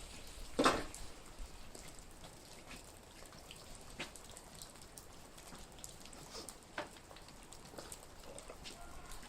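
Water dripping off a roof into a puddle: irregular drops, with one louder burst a little under a second in.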